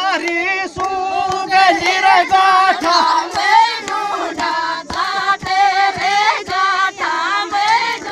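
A group of women singing a folk song together in chorus.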